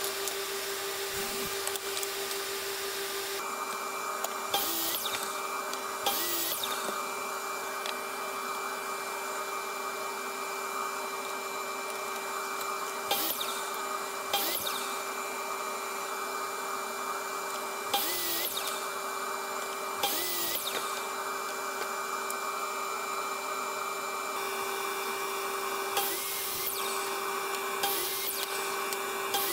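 Steady drone of a shop dust-collection system running, broken every few seconds by short, sharp bursts of a miter saw chopping through plywood, about nine in all.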